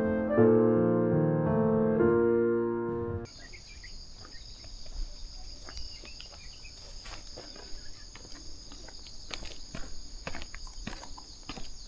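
Piano music that cuts off suddenly about three seconds in, giving way to a steady, high-pitched insect chorus with scattered short clicks.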